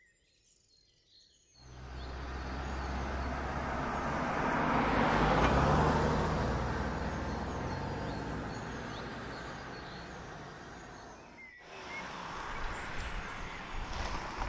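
A car passing on an open road: engine and tyre noise swell to a peak about four seconds in, then fade away. After an abrupt change near the end, birds chirp over the sound of a car moving slowly.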